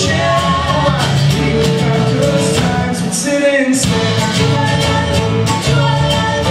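Live band playing a song: electric guitars, bass and drums with sung vocals. About halfway through, the bass and drums drop out for a moment, then come back in.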